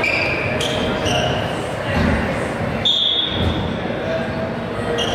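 Voices echoing in a gymnasium during an indoor volleyball game, with a volleyball thudding on the hardwood floor a couple of times and short high squeaks, like sneakers on the court.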